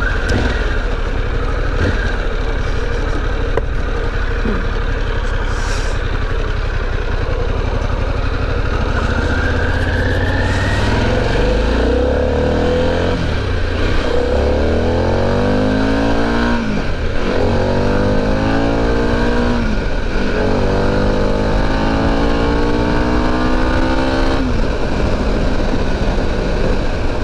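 Harley-Davidson Pan America's 1250 V-twin engine under way over steady wind noise. About halfway through the engine pulls hard through the gears: each time it rises in pitch, then drops at an upshift, about four times.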